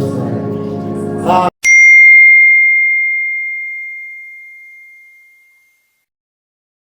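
Gospel music with singing cuts off about a second and a half in, and a single bell-like ding follows, ringing at one clear pitch and fading away over about four seconds.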